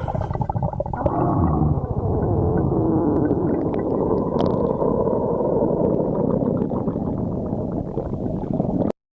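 A hungry person's stomach growling: one long, continuous rumbling gurgle with a wavering pitch, which cuts off abruptly about nine seconds in.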